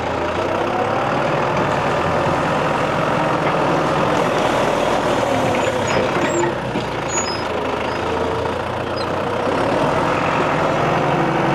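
John Deere 5520 tractor's diesel engine running steadily while the front loader shoves a log, easing off briefly about six seconds in.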